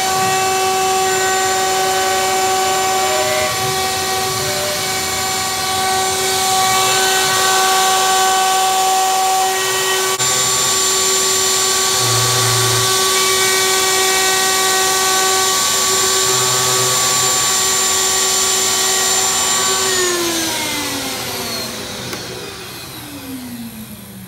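Trim-router spindle on a homemade CNC machine running steadily as it cuts a tenon in an upright-clamped board, with a shop vacuum sucking up the chips at the bit. About twenty seconds in, the whine slides down in pitch and fades as the motors spin down at the end of the cut.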